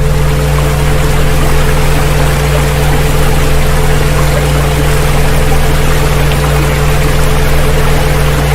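Several steady pure tones, some low and some mid-pitched, held unchanging over a continuous rushing-water sound. It is a 'healing frequency' track of tones said to relieve coughing, laid over water.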